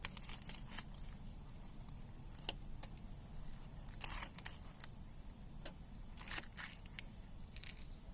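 Irregular crinkling and rustling in short clusters of crisp crackles, over a low steady rumble.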